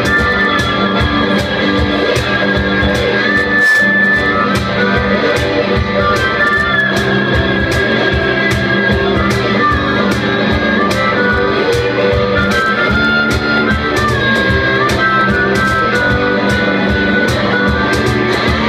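Live blues-rock band playing an instrumental passage: an electric lead guitar playing bent notes over a steady drum beat.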